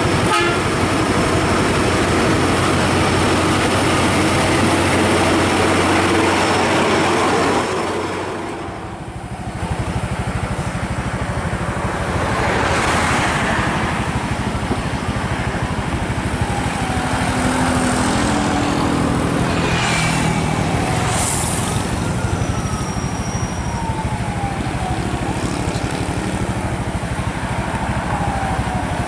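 Heavy diesel truck engine, a Hino, running with a steady hum, then after a break about eight seconds in, mixed road traffic with engines passing and a few falling engine notes.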